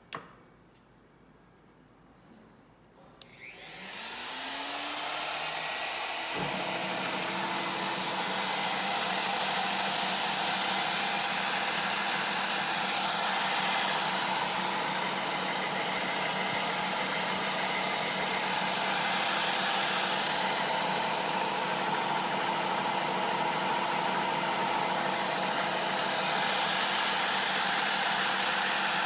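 A click, then about three seconds in a wood router, used as a tool post grinder, switches on and spins up with a rising whine into a steady, loud whir. About six seconds in a clunk is followed by a second low motor hum joining in as the lathe chuck starts turning against the grinding stone.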